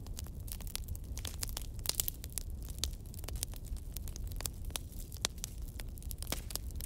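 Log fire crackling: a steady stream of sharp pops and snaps, some much louder than the rest, over a low rumble of burning.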